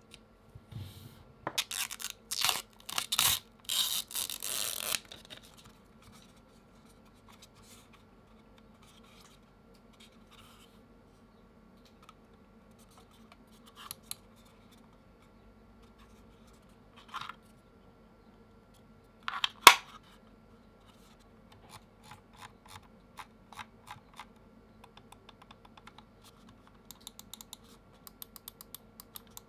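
Handling noises of a small USB receiver, its adapter and a lightweight wireless mouse in the hands, loudest as rustling and scraping in the first few seconds, with one sharp click a little before the twenty-second mark. Then the Logitech G Pro X Superlight's buttons are clicked over and over, short clicks that come faster near the end.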